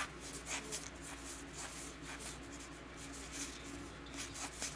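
Cardboard trading cards sliding and flicking against each other as fingers push through a fanned stack, a soft scattered rustling with small ticks.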